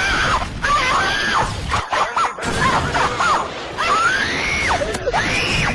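A voice screaming in a run of long high-pitched shrieks that rise, hold and fall, over a loud noisy background.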